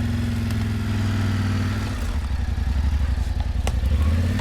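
An engine running steadily at low speed with an even low hum; its rapid firing pulses come through more plainly in the second half.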